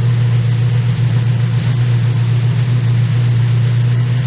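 Kawasaki Z900RS inline-four engine running at a steady speed through a handmade titanium Akrapovič-style slip-on exhaust, with no revving.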